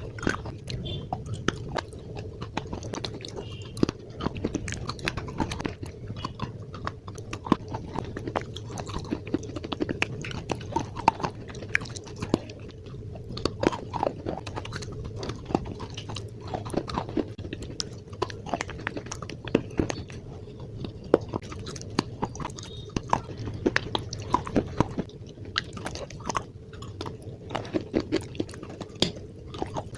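Slate being bitten and chewed: a dense run of sharp, irregular crunches and cracks, one after another.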